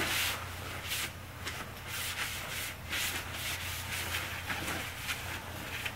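A blue shop towel rubbed back and forth along the bed ways of a Jet 1642 lathe, a quick string of hissing wiping strokes.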